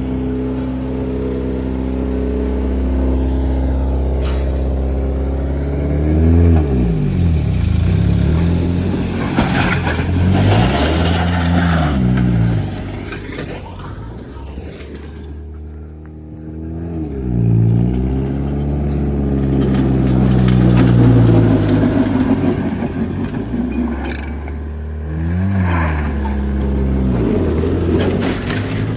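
Car engine idling, then revved up and let back down several times, with a quieter stretch about halfway through.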